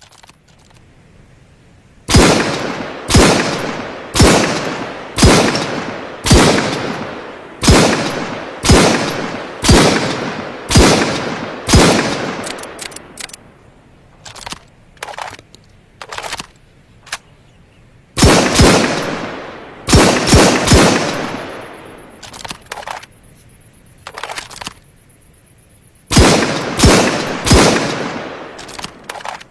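Dragunov semi-automatic sniper rifle (7.62×54mmR) firing single shots, each with a long fading echo. About ten come at roughly one a second, then a few faint clicks, then two quicker strings of four shots.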